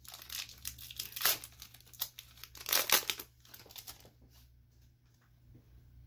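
Foil wrapper of a Pokémon card booster pack being torn open and crinkled in the hands, loudest about three seconds in, after which the rustling dies down to a few faint crinkles.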